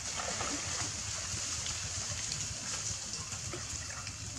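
Light splashing and dripping of pond water as a wet monkey moves in and out of the duckweed-covered shallows, over a steady hiss.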